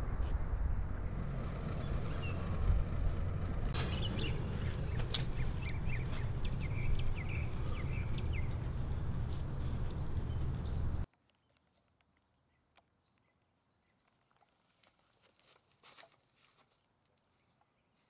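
A steady low outdoor rumble with small birds chirping over it. The rumble cuts off abruptly about eleven seconds in, leaving only faint chirps and ticks.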